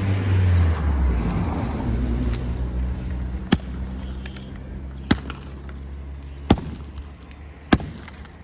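Hammer blows on brick masonry during demolition: four sharp strikes about a second and a half apart, over the low rumble of a vehicle engine that fades away.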